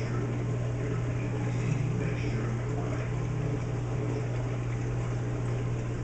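Reef aquarium running: a steady low hum from its pumps and equipment over a constant wash of circulating water.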